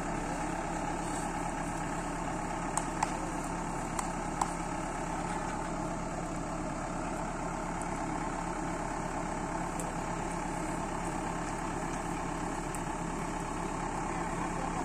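Backhoe loader's diesel engine idling steadily, with a few sharp clicks about three to four seconds in.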